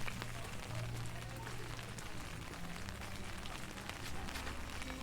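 Rain falling and splashing on surfaces: a steady hiss of rain dotted with many small drop ticks, over a low steady hum.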